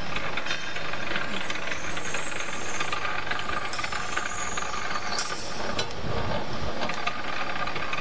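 Electric copper wire stripping machine running steadily, a continuous mechanical whirr with a hissing edge, with a few sharp clicks around the middle as a wire goes to its inlet.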